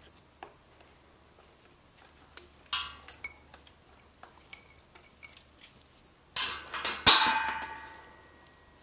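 Metal clinks and light taps as a small bearing cover is worked off the front of the engine with pliers, then a louder metallic clank about seven seconds in that rings on and fades.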